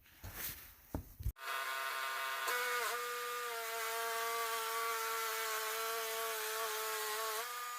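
A few knocks, then a Wood-Mizer LT10 bandsaw mill running a cut through black walnut on a freshly changed sharp blade. It makes a steady buzzing whine whose pitch dips briefly about three seconds in and rises slightly near the end.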